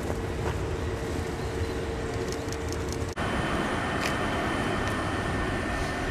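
Kintetsu electric train running steadily, a low rumble with a held mid-pitched tone. About three seconds in it cuts suddenly to a different steady hum with higher whining tones.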